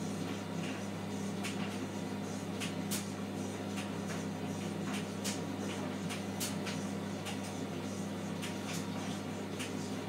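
Hotpoint front-loading washing machine in its wash cycle, the drum turning a wet towel: a steady motor hum with irregular light clicks.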